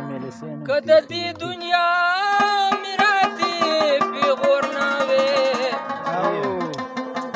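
Pashto folk music: a male voice sings long, wavering melismatic notes over a rabab and the tapping of a mangi clay-pot drum. The singing comes in about a second in and fades near the end, leaving the instruments.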